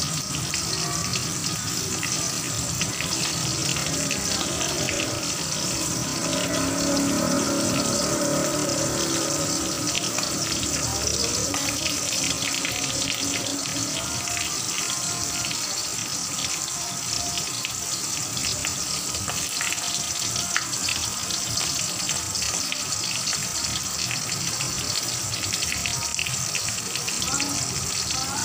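Smoked fish frying in oil in a wok: a steady sizzling hiss with fine crackles.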